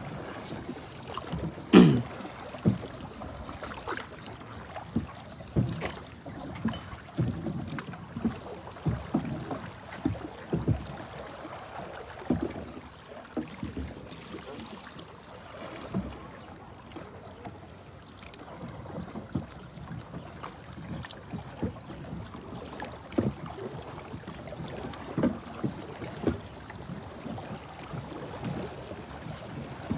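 Hand-paddled long boat moving through floodwater: irregular short splashes of the paddle strokes over water swishing along the hull, the loudest stroke about two seconds in.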